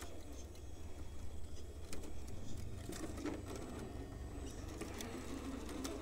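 Axial SCX10 III Gladiator RC crawler's electric motor and drivetrain whirring steadily at crawl speed, with scattered light clicks and scrapes from its tyres on sandstone rock.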